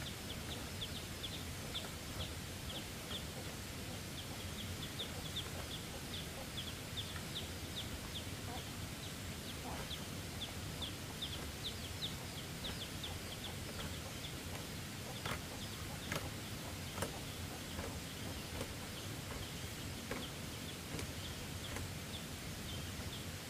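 Small bird chirping rapidly: short high chirps, several a second, thinning out about halfway through. A few sharp knocks near the end.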